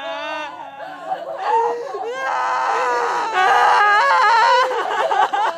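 High-pitched crying: short wavering sobs, then two long, loud wailing cries in the middle.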